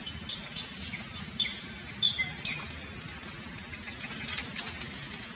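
Short, high-pitched chirps and squeaks: several spaced through the first couple of seconds, then a quick cluster near the end, over a steady low background hum.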